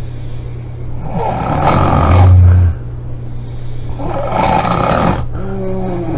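A person snoring loudly: two long snores about three seconds apart, the first with a deep low rumble, then a short breath with a wavering pitched tone near the end.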